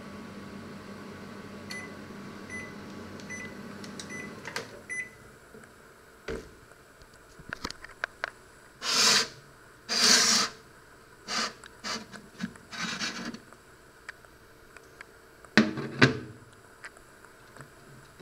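Panasonic microwave oven running with a steady hum, then beeping about six times, evenly spaced, to signal the end of cooking, the hum stopping about four and a half seconds in. The door is opened and a ceramic plate is drawn out across the oven floor with several loud scrapes and clicks, followed by two sharp knocks near the end.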